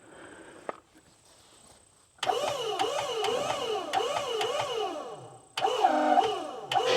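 The sawmill's machinery starts up about two seconds in and runs loudly, its pitch rising and falling about twice a second, with a brief cut-out and restart just past halfway.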